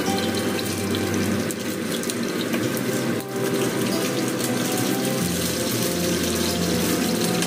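Chicken wings frying in hot oil in a wok, a steady sizzle, the wings fried until dry.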